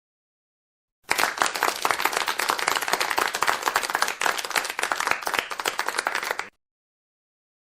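Applause: many hands clapping in a dense, irregular patter. It starts about a second in and cuts off abruptly after about five and a half seconds.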